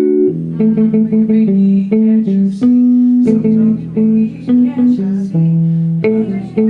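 Music: a melody of short, quickly changing pitched notes over a lower line, with a guitar-like sound.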